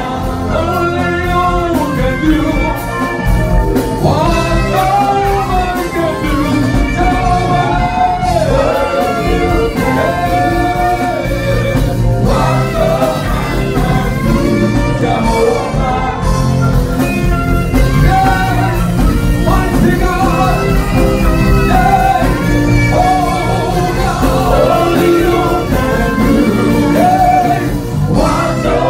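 Live gospel worship music: two saxophones playing a melody over a band with a heavy bass line, with a voice singing along.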